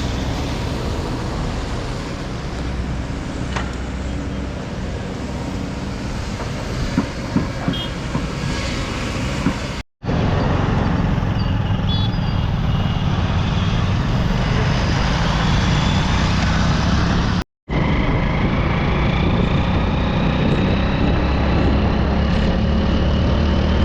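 Steady vehicle engine and road noise, as heard while travelling along a road, broken twice by brief silent cuts, about ten and seventeen seconds in.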